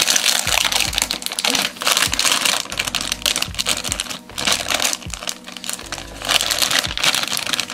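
Plastic sweets packet crinkling loudly in the hands as it is pulled and torn open at the top, in irregular bursts.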